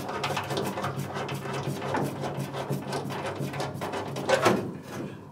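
Hand lever rivet tool clicking and creaking as it is squeezed, setting M5 rivet nuts into a car's steel floor pan. There is a louder sharp clack about four and a half seconds in, over a low steady hum.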